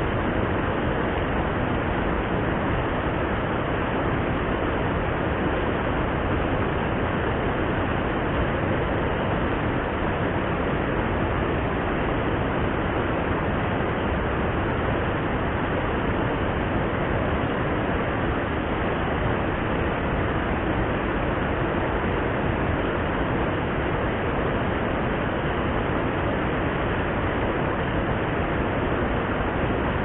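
Water rushing over a dam spillway and along the river below it, a steady, even roar with no breaks.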